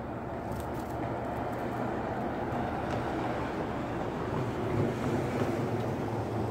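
Steady low outdoor rumble with no clear pitch, with a few faint ticks in the first two seconds.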